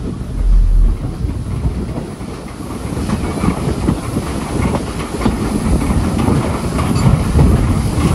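Steam-hauled passenger train running along the line, heard from a carriage window: a steady rumble of the wheels with irregular clicking over the rail joints.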